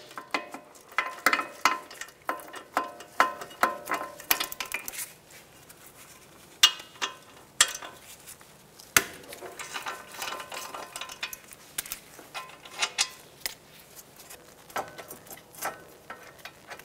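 Ratchet and socket working out the 17 mm brake caliper bracket bolts: irregular metallic clicks and clinks of tool on steel, some ringing briefly.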